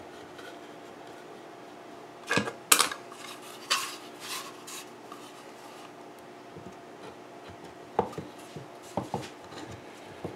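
Hard clatter of MDF pattern pieces being handled: a couple of sharp clacks about two and a half seconds in, a few smaller knocks and scrapes just after, then light taps near the end as the two halves of a wheel pattern are set together on their metal alignment pins.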